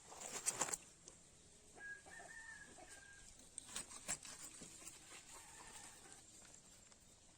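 Faint knocks and clatter, bunched in the first second and again about four seconds in, with a single drawn-out bird call about two seconds in.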